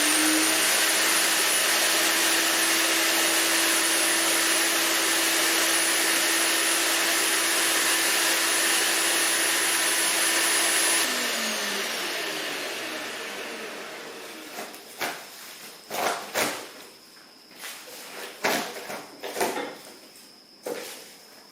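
Earthwise GS70015 electric wood chipper's motor running at a steady speed with a high whine, then switched off about halfway through and spinning down with a falling pitch. Several loose knocks and clatter follow as it falls quiet.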